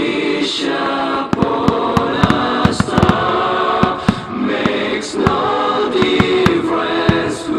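Choral music played over loudspeakers under a rapid barrage of starmine firework bursts and crackles, many sharp bangs throughout. The recording is heavily distorted by clipping.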